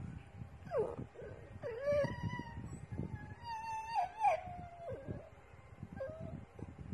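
Chihuahua howling in a few drawn-out, wavering calls, the longest around the middle lasting about a second and a half, with a short last call near the end.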